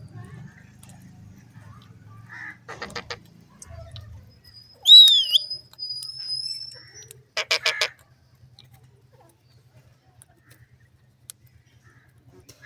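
Indian ringneck parrots calling: a short rapid chatter about three seconds in, then a loud squawk that curves downward, followed by a thin high whistle held for about two seconds. Another rapid chattering call comes near eight seconds, and the last few seconds are quiet.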